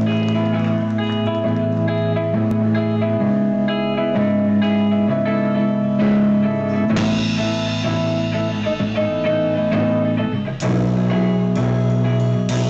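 Live rock band's instrumental intro: an electric guitar playing held chords that change every second or so, with a drum kit underneath. The sound fills out about seven seconds in and drops out briefly near the end before carrying on.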